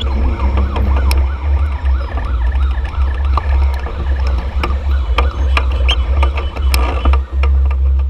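Dense motorcycle and car traffic heard from a bike-mounted action camera: a heavy, constant low rumble of engines and wind on the microphone, with scattered clicks. For the first couple of seconds a warbling tone rises and falls over and over.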